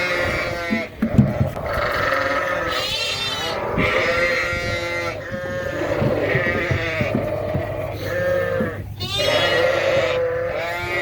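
A flock of Suffolk ewes and lambs bleating together, many overlapping calls with hardly a break, with a few knocks about a second in. The ewes and lambs are calling to each other while separated.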